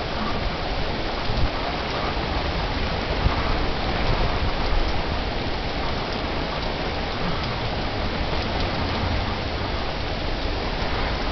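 Heavy rain pouring steadily: a dense hiss with a low rumble beneath it, and a couple of louder drop ticks in the first few seconds.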